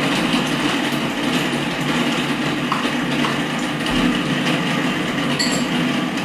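Magimix food processor running steadily, its blade cutting cold butter pieces into flour and sugar to rub them into a sandy shortcrust mix.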